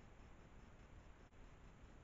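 Near silence: the steady low hiss of a trail camera's microphone, with a brief dropout a little past halfway.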